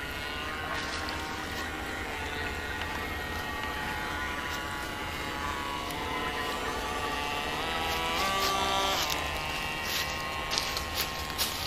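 Radio-controlled racing boat's small electric motor whining under way, its pitch rising and falling with the throttle, with a few short clicks near the end.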